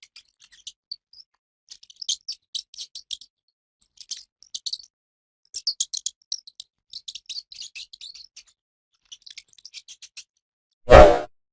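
Rat squeaking in quick runs of short, very high-pitched chirps and clicks, broken by brief pauses. Near the end a single short, much louder burst cuts across them.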